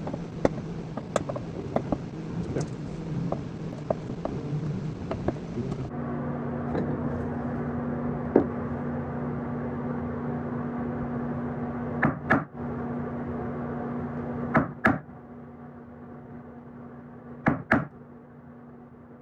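Workshop handling sounds: scattered small clicks, then a steady low hum broken three times by a pair of sharp knocks.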